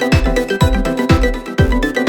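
Background music with a steady beat: a deep, falling bass drum about twice a second under bright electronic notes.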